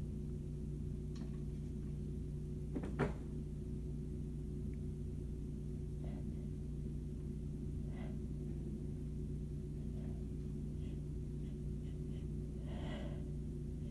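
A lull in a sneezing fit: a steady low hum, one sharp knock about three seconds in, a few faint ticks, and a short breath drawn in near the end.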